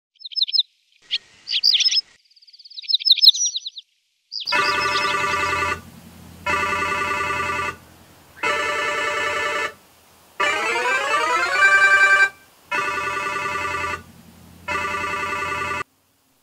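Birds chirp for the first few seconds. Then a smartphone ringtone for an incoming call rings in repeated bursts about two seconds apart, one with a rising sweep, and cuts off suddenly near the end.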